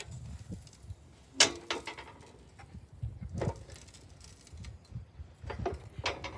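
Heavy steel fire ring with a grate knocking and clanking as it is moved into place: a few separate metallic knocks, the loudest about a second and a half in with a short ring.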